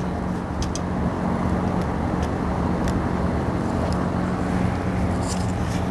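A steady machine hum with a low drone, under a few faint clicks and rustles of a vinyl seat cover being handled and pressed down.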